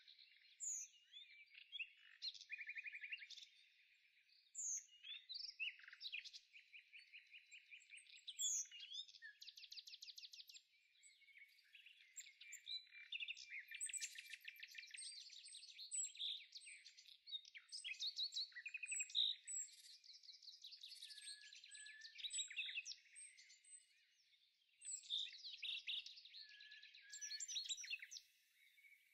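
Birdsong: a steady run of chirps, short whistles and rapid trills from songbirds, with no lower sounds underneath.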